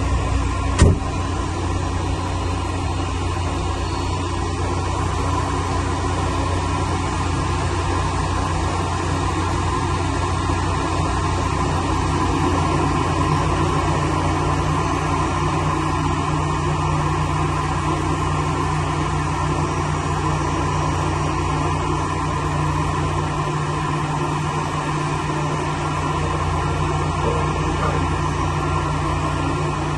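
Steady drone of an Airbus airliner on the apron during pushback: a hiss with several held tones. There is a sharp click about a second in, and a lower hum joins about halfway through.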